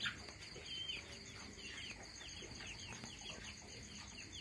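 Faint peeping of chicks: many short, high chirps, each a quick falling note, overlapping several times a second.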